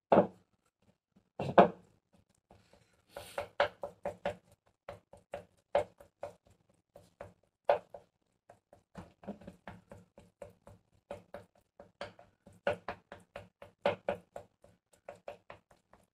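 A thin spoon stirring and mashing flaked tuna in a white bowl, knocking and clicking against the bowl in quick, irregular strokes, with two louder knocks in the first two seconds.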